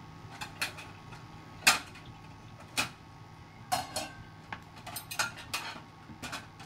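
Glass lid on a pan of simmering oats ticking and tapping against the rim, about eight irregular sharp clicks, the loudest a little under two seconds in. A faint steady hum runs underneath.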